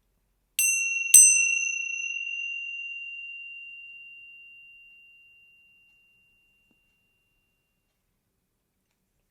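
A small, high-pitched meditation bell struck twice in quick succession, then ringing out with a clear tone that fades away over about five seconds.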